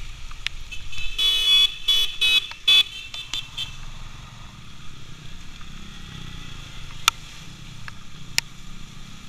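A vehicle horn sounding in several short blasts about a second in, over the steady low rumble of a motorcycle being ridden. Two sharp ticks come near the end.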